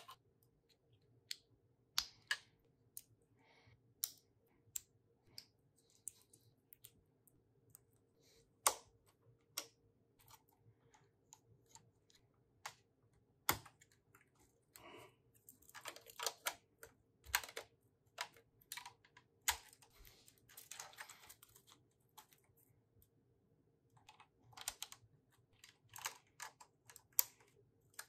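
Plastic Lego pieces being handled and pressed together by hand: scattered sharp clicks as bricks snap into place, with stretches of quieter rattling and clatter of small parts in between.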